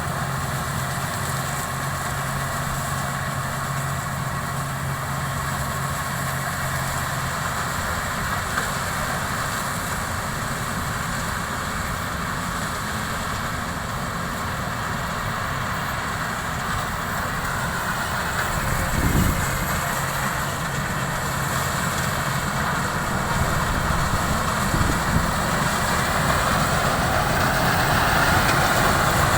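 Combine harvester engine running steadily while harvesting rice, growing louder in the last third.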